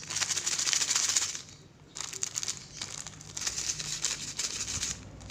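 Granulated sugar being shaken inside a small plastic bag to mix in Regent insecticide: a dense crinkling rattle of grains and plastic, in two spells with a short pause just before two seconds in.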